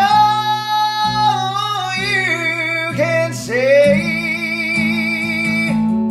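Band music: a male voice sings long held notes with vibrato, in three phrases, the last and longest from about four seconds in, over electric guitar and a sustained low bass line.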